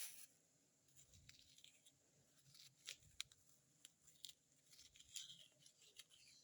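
Faint, scattered scraping and small clicks as a pear's flesh is cut and dug out to hollow its centre.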